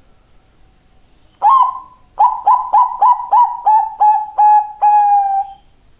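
Zebra dove of the Bangkok perkutut line cooing its song: a single opening note about a second and a half in, a short pause, then a quick run of about nine staccato coos, each dipping slightly in pitch, ending on a longer drawn-out note.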